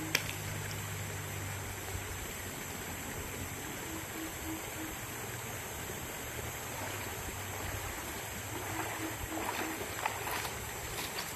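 Steady rush of water from a shallow, rocky river flowing over rapids. Near the end a few short splashes sound as someone wades through it.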